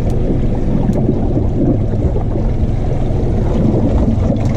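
Suzuki outboard motor idling with a steady low hum, mixed with wind on the microphone and water slapping the hull.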